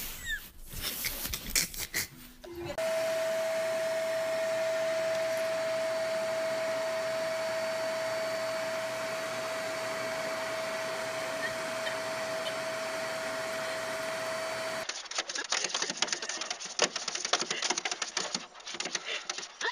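Vacuum cleaner running steadily, a loud even rush with a steady whine through it, for about twelve seconds before it cuts off abruptly. Short knocks come before it, and irregular clattering follows it.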